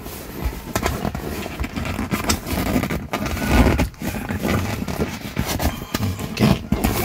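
A car's rear seat cushion being tugged up by hand: scraping of upholstery and plastic, with many clicks and knocks and the loudest thump about three and a half seconds in.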